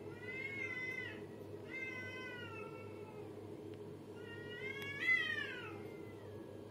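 Two cats in a challenge standoff, moaning and yowling at each other: three long, wavering calls, the last one the loudest and sliding down in pitch at its end.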